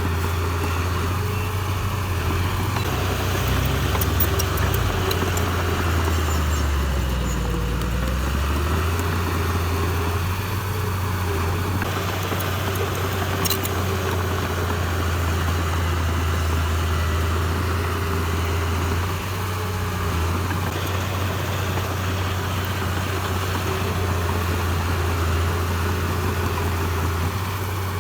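Heavy earthmoving machine's diesel engine running steadily. Its pitch dips briefly and recovers about seven to eight seconds in, as if the engine is taking load.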